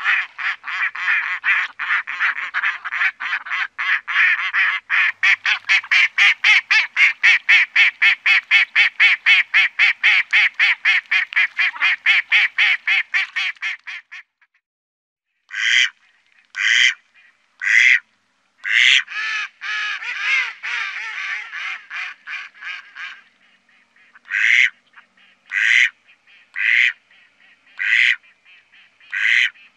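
Mallard quacking: a fast, rhythmic run of quacks at about four a second for some fourteen seconds. After a brief pause come single loud quacks about one a second, broken by a short stretch of quicker chatter.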